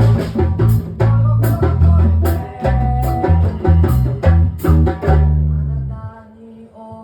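Live band playing a reggae song: bass guitar, drum kit with regular cymbal hits, and guitar. The music drops away for about a second near the end before coming back in.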